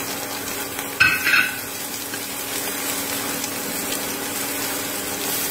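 Oil sizzling in a frying pan around pork meatballs and chopped scallion whites, stirred with wooden chopsticks. There is a short sharp knock about a second in.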